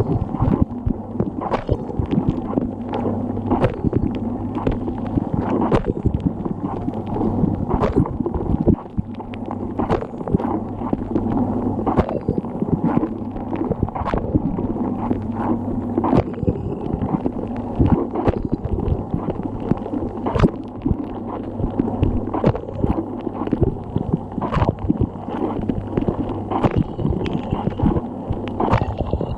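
Dishwasher running its wash: water sprays and splashes around inside the tub over the steady hum of the circulation pump, with irregular sharp knocks as jets of water strike.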